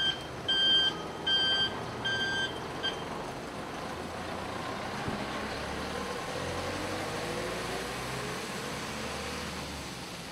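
Electronic warning beeps, about two a second, stopping about three seconds in; then a minibus driving past and away, its engine note rising over steady road noise.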